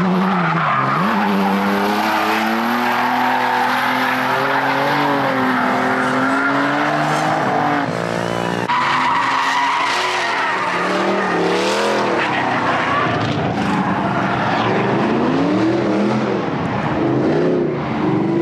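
Drift cars sliding sideways: engines revving up and down as the throttle is worked, over the steady hiss and squeal of spinning tyres. The sound cuts abruptly about nine seconds in to two cars drifting together.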